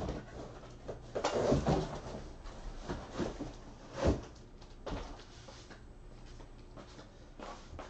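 A few scattered knocks and clicks, like objects being handled and set down on a table, the loudest about four seconds in.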